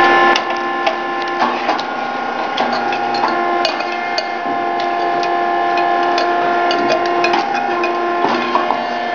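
Puffed rice cake machine working through its baking cycle: irregular sharp mechanical clicks and knocks over a steady tone that changes pitch in steps every second or so.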